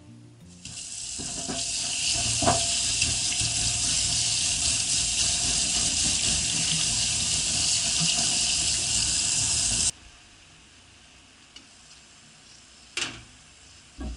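Tap water running hard into a stainless steel sink, splashing over a bundle of leopard plant stalks as they are rubbed clean. It stops suddenly after about ten seconds, and a sharp click follows near the end.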